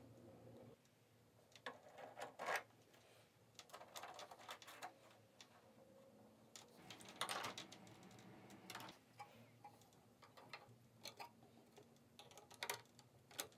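Faint, irregular clicks and taps of hard plastic parts and a small screwdriver as a propeller and spinner are fitted onto an RC model plane's motor shaft and the spinner screws are tightened.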